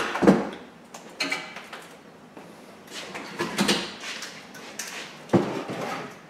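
Handling noise from a car wiring loom on its metal dashboard frame being moved and set down on a wooden workbench: a few clunks and rattles of metal, wires and plastic connectors, with a sharp knock about five seconds in.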